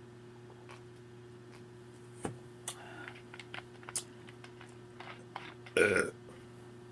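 A woman's short, loud burp near the end, after a few small clicks and mouth sounds from eating and drinking.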